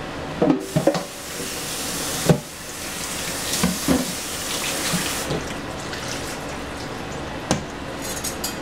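Kitchen tap running into a sink, with knocks and clatter of things being handled; the water shuts off about five seconds in, and a sharp knock follows near the end.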